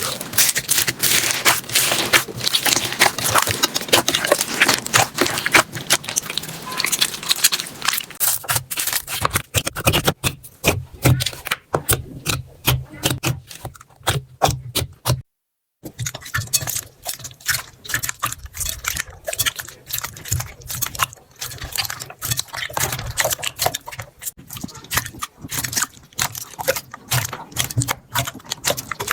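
Slime being squished and poked by hand: a dense run of wet crackling, clicking and popping. It stops dead for about half a second about halfway through, then carries on with more separate pops.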